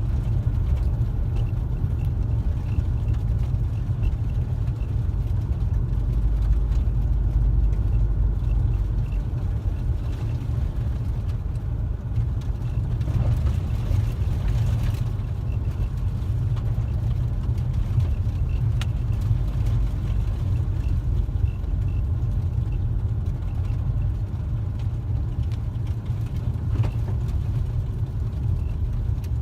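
Steady low rumble of a car's engine and tyres on snow-covered road, heard from inside the cabin while driving.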